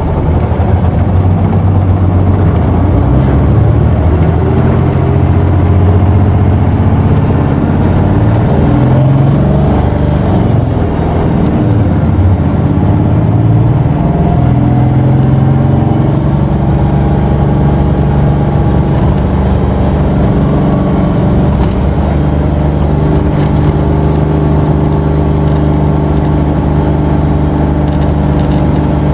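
Isuzu Erga city bus's six-cylinder diesel engine pulling hard under heavy throttle, heard from inside the cabin. The engine note drops about eleven seconds in, climbs again for a few seconds, then holds at a steady pitch while the bus cruises.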